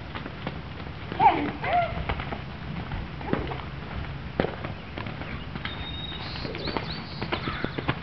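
Hooves of a chestnut horse on the lunge striking wet, muddy arena sand in an irregular run of dull thuds. A short call with a bending pitch stands out about a second in.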